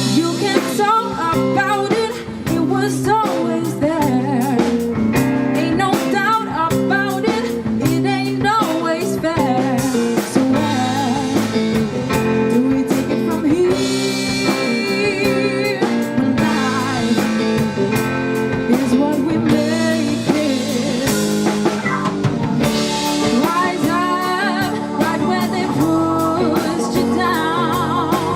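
Live band playing a blues-rock number: drum kit, bass and guitars, with a wavering lead melody line over it.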